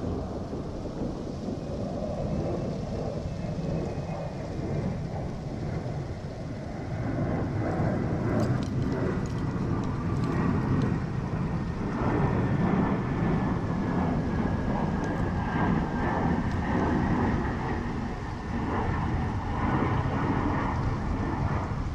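Low rumble of an aircraft passing, with a faint high whine that slowly falls in pitch, the rumble growing louder about six seconds in.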